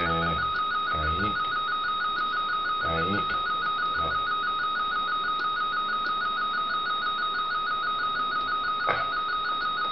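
RTTY radioteletype signal from a radio receiver's speaker: a steady warble that switches rapidly between two close tones, the frequency-shift keying carrying text to be decoded.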